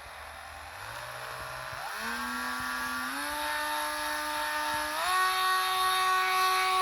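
A hot-wired cordless rotary tool's motor running, its whine starting about a second in and stepping up in pitch several times while getting louder.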